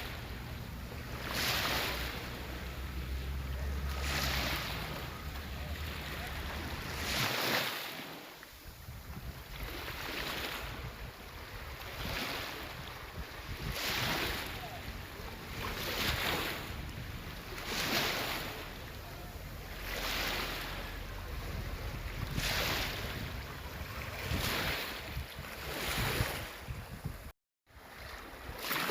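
Sea waves washing onto the shore in a steady rhythm, one surge of surf about every two seconds. Wind buffets the microphone in the first several seconds, and the sound cuts out for a moment near the end.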